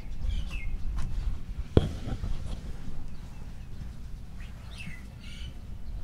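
Birds chirping in short calls, several around the start and a cluster near the end, with one sharp knock a little under two seconds in, over a low steady rumble.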